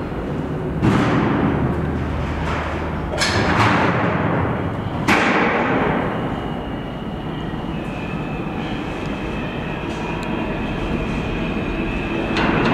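R160 subway train approaching and pulling into an underground station. Three loud thumps fall in the first half. A steady high whine holds through the second half, and the noise grows louder near the end as the train reaches the platform.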